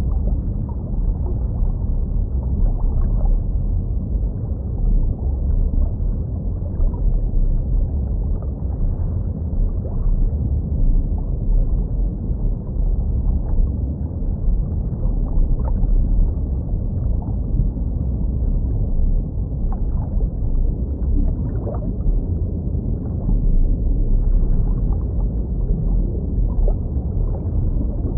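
Muffled underwater water ambience: a steady low rumble of moving water, as heard under the surface of a fish tank, with a few faint short pops scattered through.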